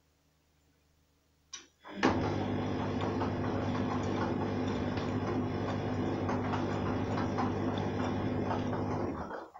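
Arçelik 3340SJ front-loading washing machine turning its drum in the wash, a motor hum with water and a wet heavy carpet cover churning inside. It starts with a click about two seconds in, runs steadily for about seven seconds, then stops as the drum pauses.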